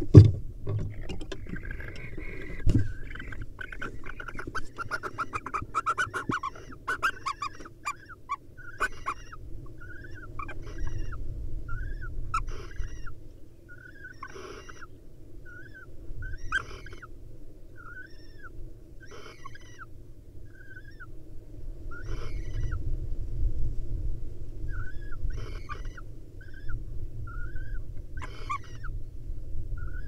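Barn owl pair calling while mating in the nest box: a dense twittering chatter for the first several seconds, then short chirping calls about once a second with some harsher hissing calls among them. A loud thump right at the start and another about three seconds in.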